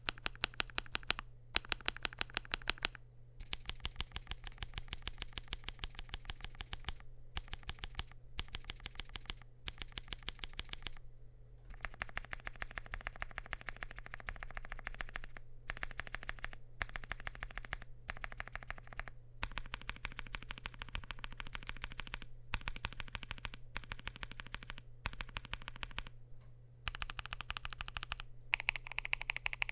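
CIDOO V75 mechanical keyboard typed on fast: lubed and filmed CIDOO Matte linear switches bottoming out under PBT Cherry-profile keycaps on a flex-cut polycarbonate plate, with foam-dampened gasket mounting. The keystrokes come as rapid, even clacks in runs of a few seconds, separated by brief pauses.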